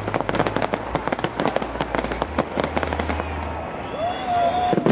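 Fireworks display: a rapid, dense run of bangs and crackles from exploding shells, many each second.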